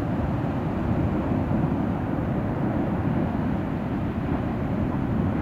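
Benbow's active lava lake on Ambrym volcano boiling and fountaining: a steady low rumble of churning lava and escaping gas.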